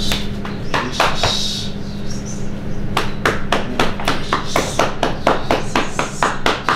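A quick series of sharp hand smacks, a few single ones early and then a fast even run of about four a second through the second half.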